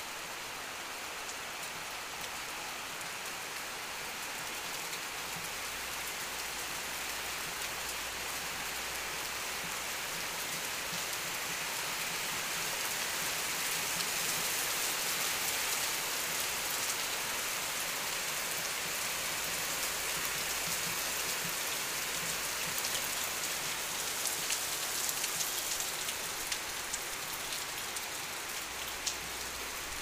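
Steady heavy rain pouring onto trees, leaves and wet ground, growing a little heavier in the middle. Sharp ticks of nearby drops hitting a hard surface come through now and then, mostly in the second half.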